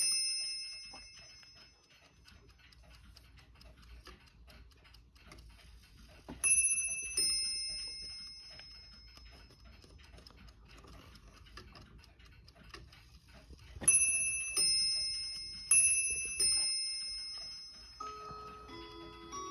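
Mauthe Bim-Bam mantel clock ticking while its two bells strike in bim-bam pairs, high note then lower note. There are three pairs, each ringing out and fading, the last two close together.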